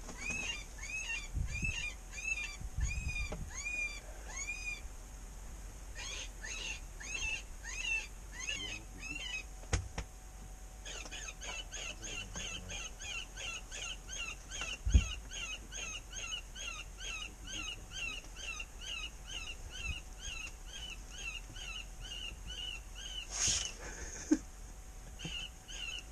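Predator call playing a prey distress sound to lure coyotes: a steady, evenly spaced run of short high cries, about three a second, fainter for a few seconds in the middle. A sharp thump stands out partway through.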